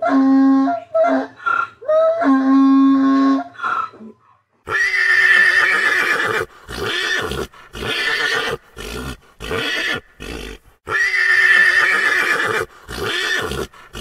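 A horse whinnying in a series of loud calls, two long ones with shorter ones between, starting about a third of the way in. Before that, two steady, clear-pitched animal calls.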